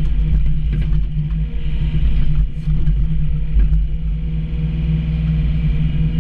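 Komatsu PC28 mini excavator running steadily at working revs, heard close up from the operator's seat while the boom and bucket are worked with the hydraulic levers, with a few short knocks along the way.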